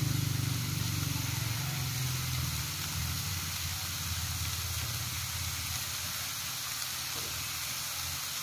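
Chopped chicken sizzling in a steel pan over a wood fire: a steady frying hiss with a low, even rumble underneath.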